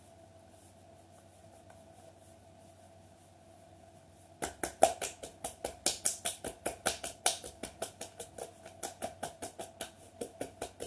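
Hands rubbing faintly at bare ankles, then from about four seconds in a fast run of sharp taps, roughly six a second, as the hands tap the ankles in self-massage.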